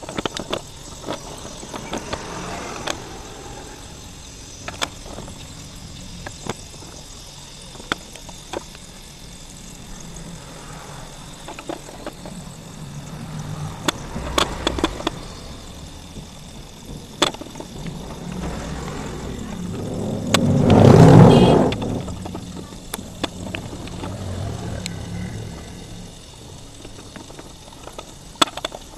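Wet slate pieces clicking and clacking against each other as hands sort them in water in a steel basin. Irregular sharp clicks come throughout, over a low steady rumble, and a louder rushing sound swells and fades about three-quarters of the way through.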